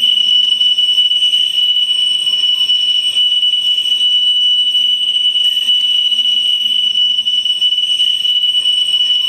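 A steady high-pitched electronic tone, held unbroken, with a faint low hum beneath it: a drone in the dance piece's score.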